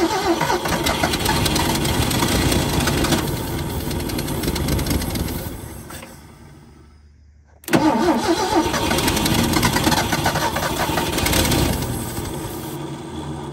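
1980 Ford 300 inline-six, parked for 25 years, firing and running on carb cleaner sprayed into the carburetor with no fuel supply hooked up, then dying away after about six seconds as the spray is used up. About halfway through it catches suddenly again, runs and fades out near the end.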